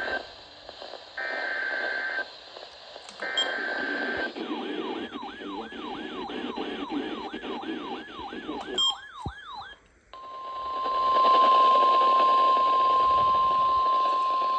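Emergency Alert System broadcast over NOAA Weather Radio: three short bursts of SAME header data tones, then about five seconds of rapidly repeated falling siren-like whoops, about three a second. After a short break, the steady single-pitch 1050 Hz weather radio alert tone sounds, announcing a new alert, over faint radio hiss.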